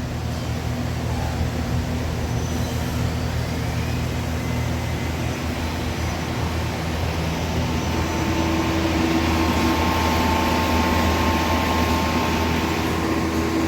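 Okuma Simulturn LU-400 CNC lathe with its spindle running under power, a steady mechanical hum with several held tones. About eight seconds in it gets a little louder and higher steady tones come in.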